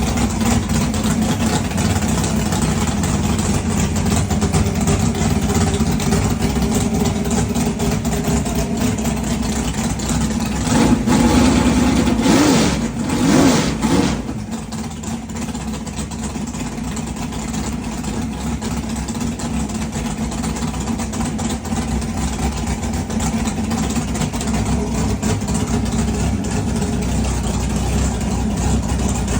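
Big-block Chevy V8 running on an engine test stand, idling steadily. It is revved twice about a third of the way through, then settles back to a steady idle.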